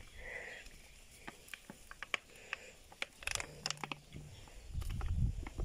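Soft crackle and scattered small clicks of a paper ice-cream wrapper being squeezed, with ice cream dropping into a glass jar. A low rumble builds near the end.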